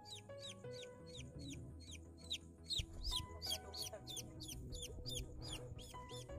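Newly hatched kampung chicken chicks in the incubator peeping: a fast, continuous run of high, falling peeps, several a second.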